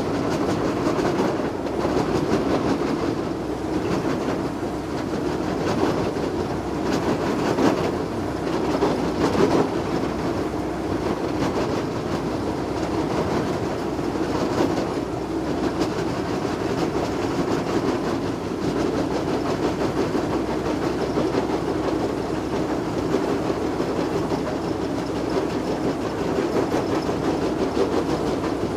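Heizohack wood chipper on a Heizotruck running at work, chipping wood: a steady, dense machine noise with an irregular crunching crackle and no pauses.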